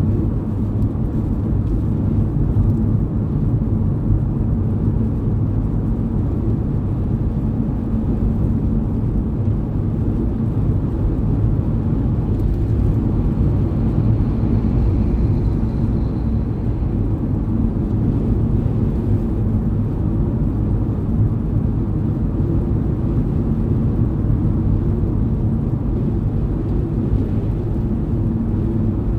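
Steady low rumble of a car driving on snowy roads: tyre and road noise with engine drone, unchanging throughout.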